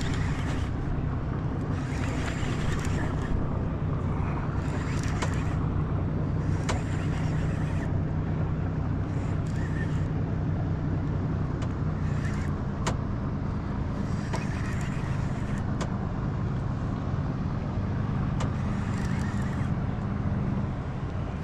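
A boat's outboard motor idles with a steady low hum. Water splashes against the small boat's hull every couple of seconds, with a few sharp clicks.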